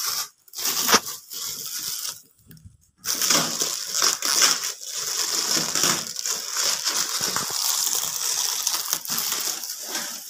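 Shiny metallic gift wrap being torn open by hand, a dense crinkling and rustling, with a short quiet gap about two to three seconds in.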